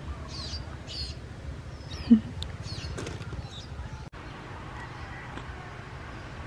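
Small birds chirping in short, high calls over a low, steady rumble, with one brief low sound about two seconds in. The chirping stops about four seconds in, leaving a steady hiss.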